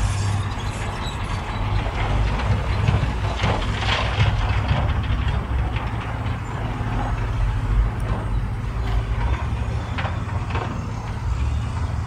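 Diesel engine of heavy earthmoving machinery running steadily, with scattered clanks and scrapes of metal on stone.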